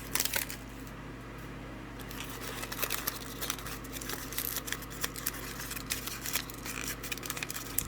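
Small plastic blind bag of toy accessories being handled and opened: crinkling and rustling with many small clicks, busier after about two seconds in, over a faint steady hum.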